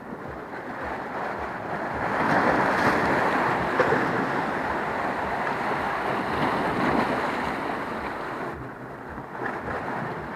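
Sea waves washing against coastal rocks, a steady rush that swells about two seconds in and eases off near the end.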